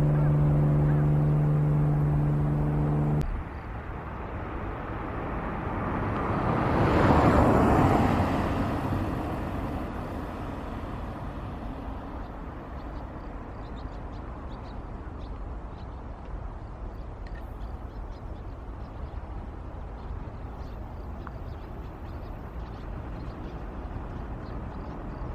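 A motor vehicle passing close by, its noise swelling to a peak about seven seconds in and then fading into steady background traffic noise. Before it, a steady low droning tone stops abruptly about three seconds in.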